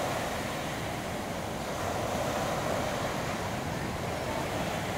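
Storm surf breaking and washing up a sandy beach ahead of an approaching typhoon, a steady wash of noise, with wind blowing through it.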